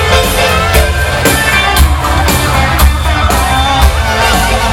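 Live band music played loud over a concert sound system, with a steady bass beat about twice a second.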